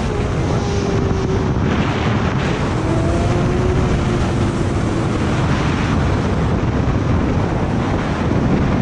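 Loud wind rush on the microphone over the faint note of a Yamaha R6 (RJ11) 600 cc inline-four motorcycle engine, its pitch sagging slightly as the bike rolls along at a steady speed.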